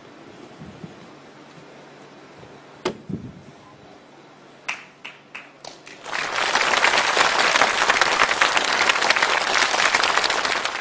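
Studio audience applauding loudly, breaking out about six seconds in after a few scattered early claps. Before that, a single sharp knock about three seconds in.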